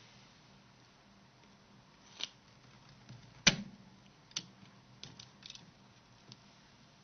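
Slotted screwdriver prying the clips of a Nokia 6680's display shield free: a handful of short, sharp clicks, the loudest about three and a half seconds in, with a quick cluster a couple of seconds later.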